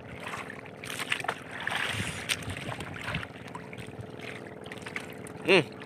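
Sea water lapping against a small wooden outrigger canoe, with scattered clicks and rustles of a freshly caught fish being unhooked by hand. A short voice sound comes near the end.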